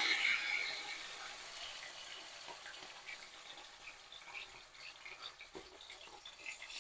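Marinated whitebait shallow-frying in hot extra virgin olive oil in a wok, sizzling and crackling. The sizzle is loudest at the start and settles to a lighter crackle with scattered pops, with a single light knock near the end.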